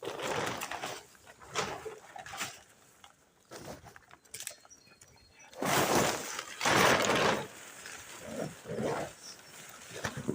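Rustling and crumpling of plastic sheeting and bin bags as litter, an old tarp and tent, is bagged up, in a series of bursts, the loudest about six seconds in.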